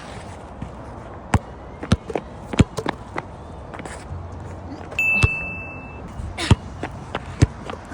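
Basketball bouncing on a hard court, several separate dribbles spaced irregularly, with a short high-pitched tone about five seconds in.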